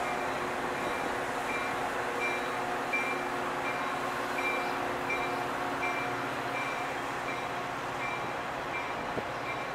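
A train rolling past with a steady rush of wheels on rail. Over it a grade-crossing warning bell dings steadily, about three strokes every two seconds.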